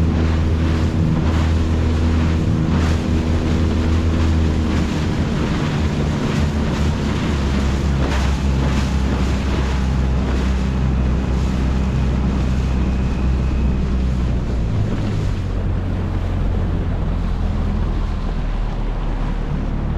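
Small outboard motor running steadily on an inflatable dinghy under way, its low drone shifting slightly in pitch twice, with wind buffeting the microphone and water rushing past the hull.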